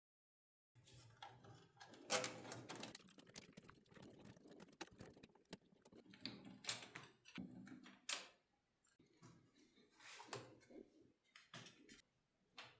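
Close-miked hands handling computer parts during a PC build: irregular clicks, taps and scrapes starting about a second in. The sharpest clicks come about two seconds in and again about eight seconds in.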